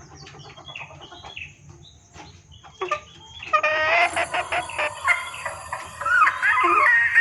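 Female junglefowl calling: faint scattered clucks at first, then loud rapid clucking starting about three and a half seconds in, with wavering drawn-out calls near the end. This is the call of a hen in breeding condition summoning males, used as a lure for hunting junglefowl.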